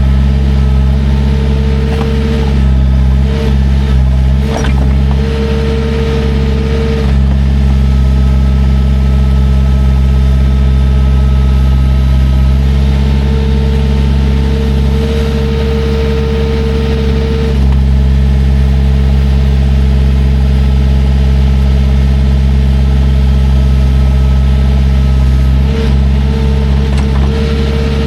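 Diesel engine of a piece of heavy equipment running steadily, with a higher whine that comes and goes several times.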